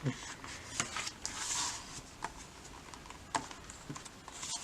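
Photobook pages being handled and turned by hand: a soft paper swish about a second and a half in, among scattered light taps and clicks.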